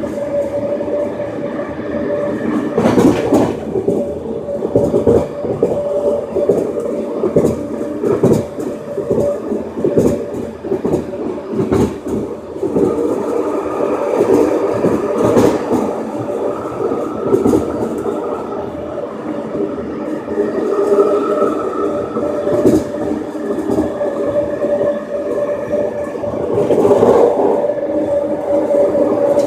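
Ride inside a Vancouver SkyTrain car, a driverless metro train with linear induction motors, moving along the elevated guideway. The car gives a steady running rumble with a constant mid-pitched hum, broken by frequent wheel clicks and knocks over the track.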